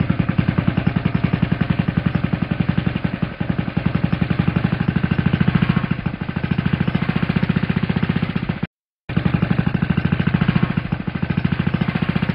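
Small DC motor of a homemade foam speed boat running and driving its propeller: a loud, rapid buzzing that swells and eases as the speed controller changes the motor's speed. It cuts out briefly about nine seconds in.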